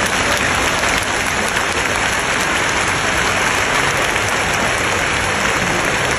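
Crowd applauding in an indoor arena, a steady clapping that does not let up.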